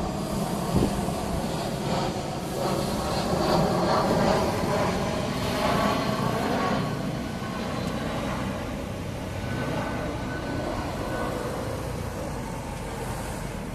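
Street traffic with an electric street tram running; the noise swells in the middle as a vehicle passes close, then settles back to a steady rumble.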